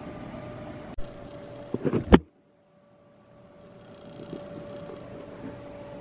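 Steady whir of running computer fans with a faint steady hum. A few handling knocks come about a second in, then a sharp click about two seconds in. The sound drops out briefly and the fan whir fades back in.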